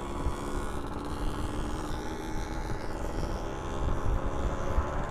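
Two-stroke motorcycle engine running steadily under way, with a dense low rumble beneath it.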